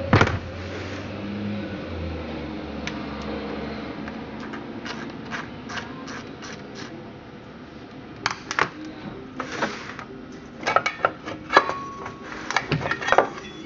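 Clicks, knocks and metal clinks from parts of a Mercury Disston DA-211 two-cylinder chainsaw being handled: a light, uneven string of clicks in the middle and a cluster of sharper knocks in the last few seconds, one of which rings briefly.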